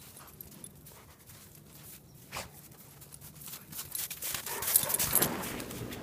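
A Great Dane puppy and another dog playing in snow: faint scuffling for the first few seconds, then louder rustling and snow noise about four and a half seconds in, as one dog brushes up close.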